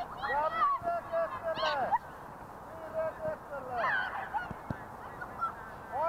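A flock of geese honking, many short overlapping calls coming in bunches: a dense run in the first two seconds, another about four seconds in, and more at the very end.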